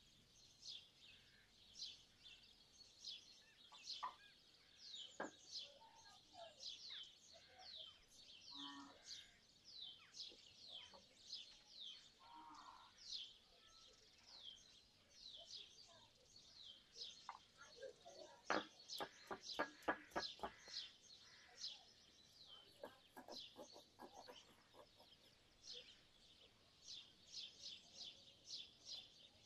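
Faint, steady series of quick high downward chirps from a bird, about two a second. Partway through, a run of sharp knocks of a stone roller on a stone grinding slab, the loudest sounds, followed by a second shorter run.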